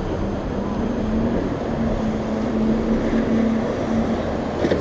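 Motorboat engine running, a steady note that rises slightly in pitch about a second in and fades out near the end, over a constant rush of wind and water noise.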